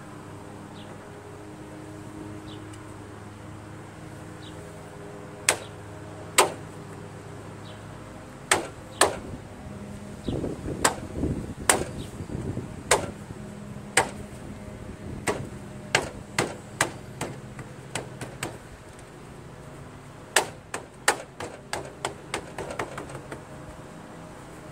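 Sharp knocks and snaps of a hand pressing and slapping a rubber foot pad into place on a lawn tractor's plastic footboard. There are two single knocks, then an irregular run of them, then a quick flurry near the end.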